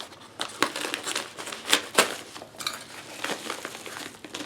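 A cardboard shipping box being cut open and unpacked: a series of sharp snaps and scrapes, the loudest about two seconds in, with crinkling of packaging between them.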